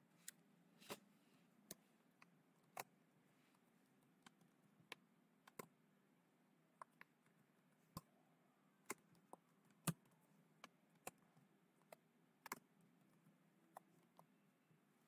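Computer keyboard keystrokes: faint, irregular clicks as a word is typed, about twenty scattered keypresses with gaps between them.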